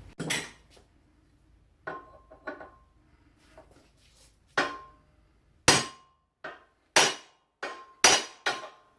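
A hammer striking metal about ten times at an irregular pace, the later blows louder, several leaving a short metallic ring.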